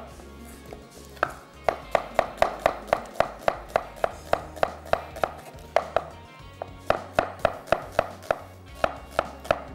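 Knife slicing an onion on a chopping board: quick, even strokes, about five a second, with a short pause in the middle.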